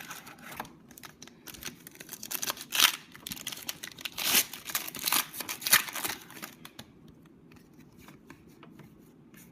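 A pack of trading cards handled by hand: crinkling and rustling of the wrapper and cards sliding against each other for about five seconds, loudest in the middle, then only faint light ticks.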